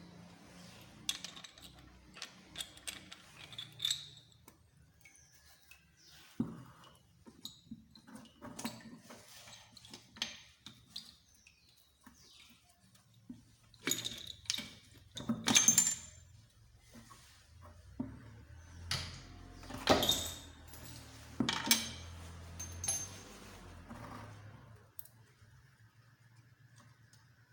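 Small metal motorcycle-engine parts and hand tools clinking and tapping against each other as they are handled, in an irregular run of sharp clinks with a few louder strikes about halfway through and again about three-quarters through.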